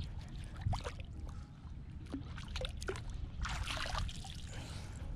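Water splashing as a fish on a rope stringer is dropped into the sea, loudest a little past halfway, with small drips and clicks around it.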